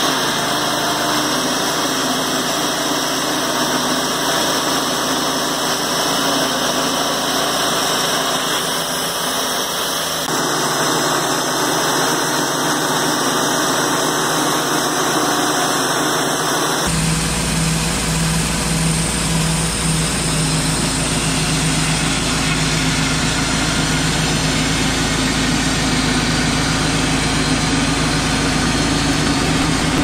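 Wood-Mizer LT28 band sawmill running steadily, its engine driving the band blade through a large white pine log. The sound changes abruptly twice, about ten and seventeen seconds in, after which a steady low hum is added.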